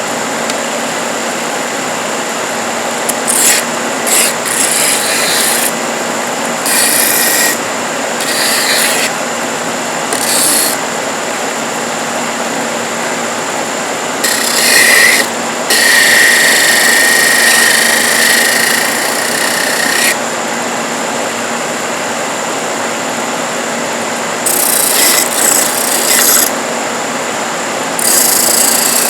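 Parkside PTSB 140 B3 bench-top disc sander running steadily while wood is pressed against the sanding disc in short passes. Each pass adds a louder scratchy rasp; the longest lasts about four seconds in the middle, and the others are a second or two.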